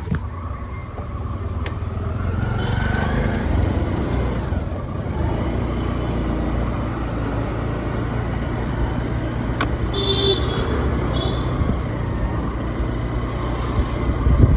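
Steady low rumble of a vehicle on the move: engine and road noise, with a few clicks and a brief higher-pitched sound about ten seconds in.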